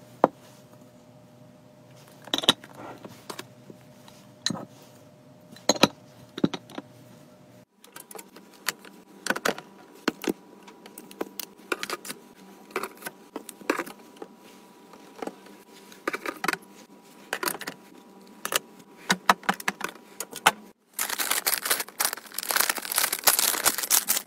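Metal cat-food tins and packets clinking and tapping as they are handled and set down, a run of separate sharp clicks. Near the end comes about three seconds of continuous loud crinkling of a plastic package.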